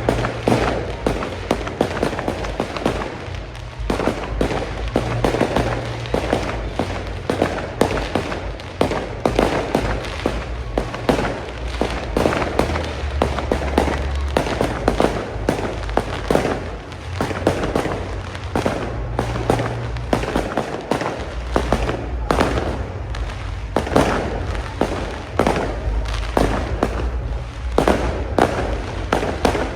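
A fireworks display in full barrage: a dense, continuous run of bangs and crackles, many per second, with no let-up.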